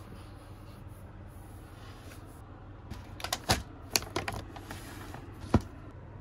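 Metallic anti-static bag crinkling and crackling in gloved hands as a graphics card is pulled out of it. A run of sharp crackles starts about halfway through and ends in one louder snap, over a low steady hum.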